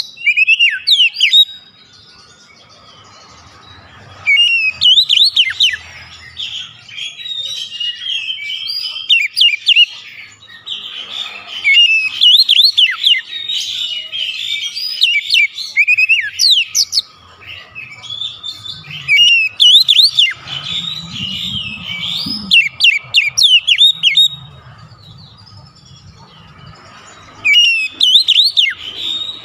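Male oriental magpie-robin (kacer) singing in phrases of rapid whistles and chattering trills, each a few seconds long, with short pauses between them.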